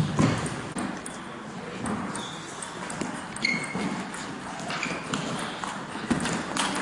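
Table tennis ball clicking sharply against the table and bats at scattered moments, over the murmur of a large sports hall, with a few short high squeaks.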